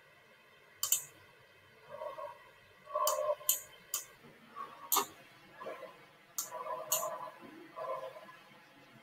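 Sharp, scattered clicks of someone operating a computer, about six in all at irregular intervals.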